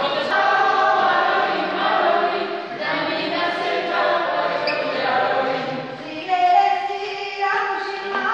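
A group of voices singing a song together, in phrases of held notes with short breaks between them.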